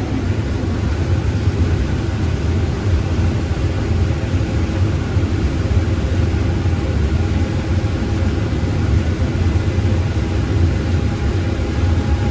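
Case IH 8120 combine running steadily while harvesting corn, a constant low hum with faint steady whine above it.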